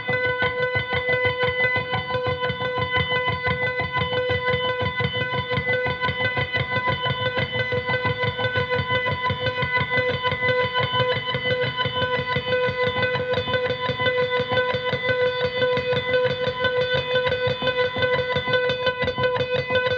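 Electric guitar played through an effects pedal and an amp as improvised noise: a steady droning tone near 500 Hz with a stack of overtones, over a fast, even pulsing underneath.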